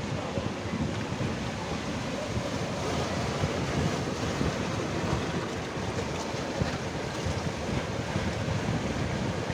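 Sea waves washing on the shore in a steady wash of surf, with wind buffeting the microphone in a rough low rumble.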